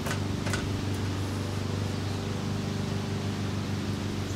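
Steady low mechanical hum over a hiss, with two light clicks in the first half-second.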